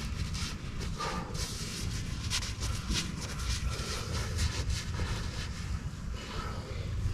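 Irregular clinks and scrapes of metal engine parts being handled during a diesel engine teardown, over a steady low rumble.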